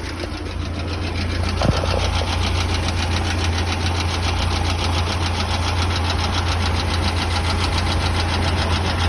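Running engine with a rapid, even knock ticking over its steady hum. It gets a little louder over the first couple of seconds, with a single sharper click early in that rise.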